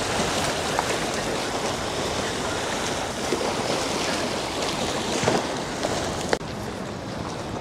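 Choppy harbour water lapping and splashing against moored boats and the stone quay, with wind on the microphone. A short knock comes about six seconds in, after which the sound turns duller.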